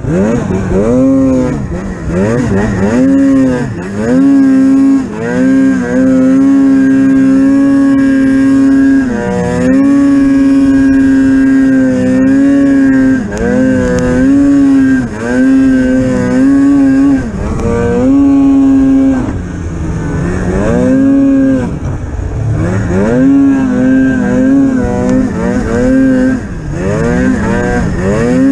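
Polaris Pro RMK 800 snowmobile's two-stroke twin engine revving, the throttle repeatedly opened and eased off so the pitch rises, holds high and dips again.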